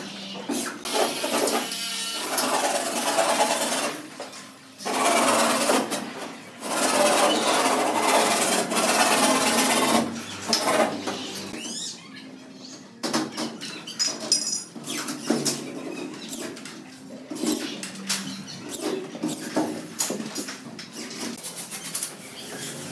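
Corded power screwdriver running in bursts of a few seconds, driving screws through gypsum board into a metal ceiling frame. In the second half come many short knocks and clatter.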